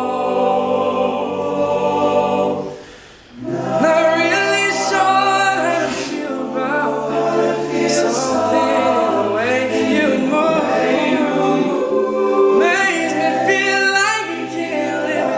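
A male a cappella group singing close harmony over sustained low bass notes. The singing drops away briefly about three seconds in, then comes back in.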